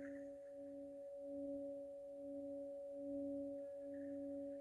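Faint background 'frequency' tone track: a few steady pure tones layered together, the lowest one dipping briefly about once a second, like a sustained tuning fork or singing bowl.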